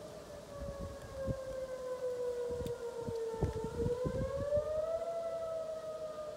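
Whelen outdoor warning siren sounding its wail tone: one steady pitched tone with overtones that slowly falls, climbs back up about five seconds in, and begins to fall again. A few low rumbling knocks sit under it in the first half.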